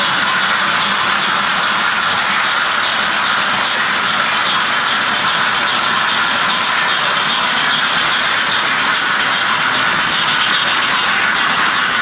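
Märklin model steam train running along the track across the bridge: a steady, even rushing noise from the locomotive and wagons, with no clear rhythm.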